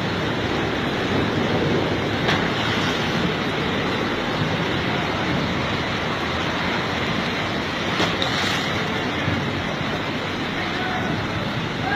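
Floodwater rushing down a street, a loud, steady rush of moving water.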